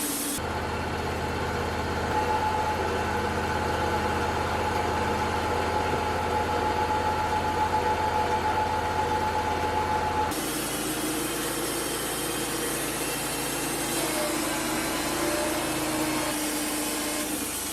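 Wood-Mizer LT35 portable band sawmill running steadily, its engine note unbroken, with two abrupt shifts in the sound, about half a second and about ten seconds in.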